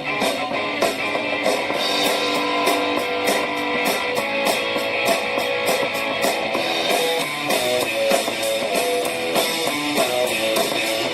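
Guitar-led music with a steady beat played through a small portable Bluetooth speaker and picked up by the microphone, with little bass.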